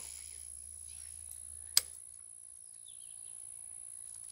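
Steady high-pitched insect drone over faint outdoor background, with one sharp click a little under two seconds in and a few faint bird chirps near the middle.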